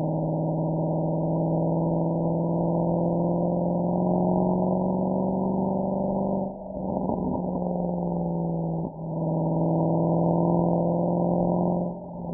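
Mercedes-AMG SL63's V8 exhaust under way, a steady drone at held revs. About halfway it drops off into a spell of crackling, a couple of seconds later there is a quick dip as of a gearshift, and near the end it drops again with more crackles.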